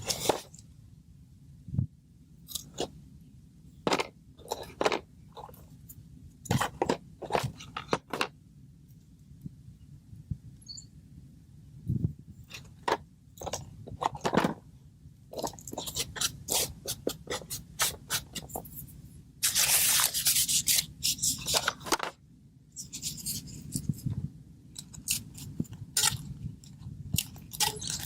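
Footsteps crunching and scraping on dry ground outdoors, irregular, with a denser stretch of rustling about two-thirds of the way through, over a low steady outdoor rumble.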